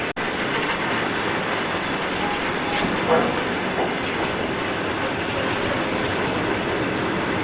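Trans-Siberian passenger train running: a steady rail noise, cut out for a moment just after the start, with a short, louder knock about three seconds in.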